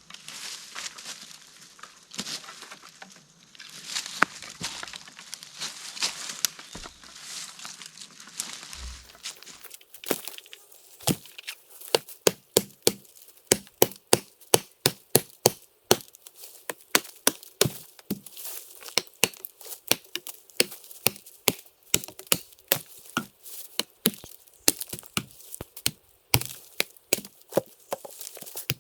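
Rustling and crackling for about ten seconds, then a long run of sharp strikes on wood, roughly two a second, as wood is chopped or hacked for the shelter posts.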